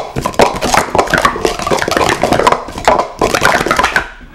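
Plastic sport stacking cups clattering as two stackers rapidly upstack and downstack them on stacking mats: a dense, loud run of quick clicks and clacks.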